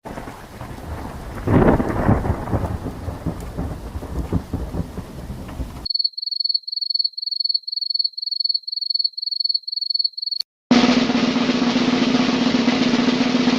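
A string of separate sound effects. First a rumbling thunder-like noise with a loud crack about a second and a half in. Then a high electronic beep repeating about three times a second for several seconds. After a click, a steady hissing noise with a low hum underneath.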